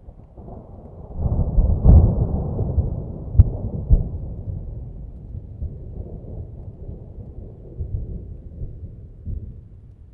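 Thunder: a low rumble builds to a loud peak about two seconds in, two sharp cracks follow, then a long rolling rumble slowly fades with a couple of smaller swells.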